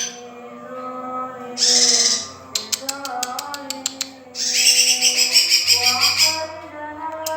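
Young male cucak ijo (greater green leafbird) singing: two bursts of high, rapid twittering, separated by runs of fast, sharp clicking notes, over lower held tones.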